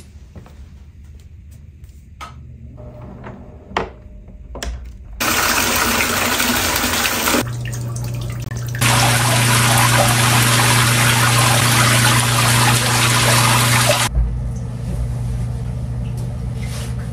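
Shower running in a tiled bathroom: a steady rush of water spray that starts about five seconds in and stops abruptly about fourteen seconds in, with a couple of sudden jumps in level along the way. A few soft knocks and clicks come before it, and a low steady hum follows it.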